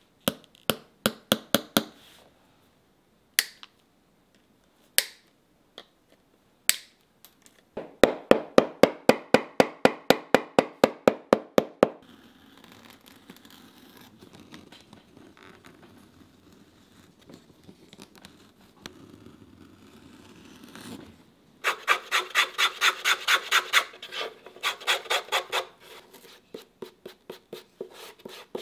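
Shoemaking hand tools on leather: a few light hammer taps on lasting tacks, then a fast run of about twenty sharp strikes. This is followed by a quieter stretch of a knife cutting and scraping leather, and finally quick, even back-and-forth scraping strokes over a leather piece.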